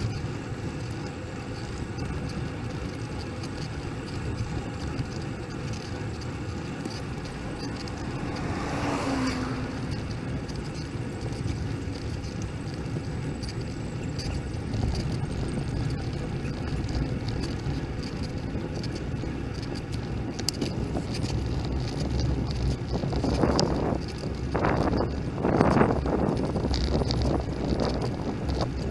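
Steady wind buffeting and road noise on a bicycle-mounted camera during a ride. A vehicle swells past about nine seconds in, and several louder surges come near the end.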